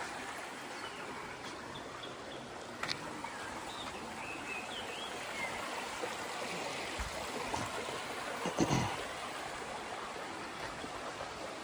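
Steady rush of flowing stream water, with a sharp knock about three seconds in and a louder low thump near the ninth second.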